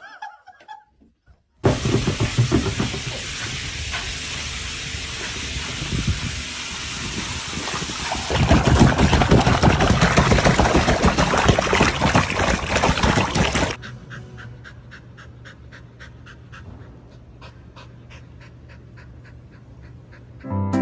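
Loud, continuous splashing of water as a small poodle thrashes in a paddling pool. It grows stronger about halfway through, then cuts off abruptly to a much quieter stretch with a low hum and faint ticks.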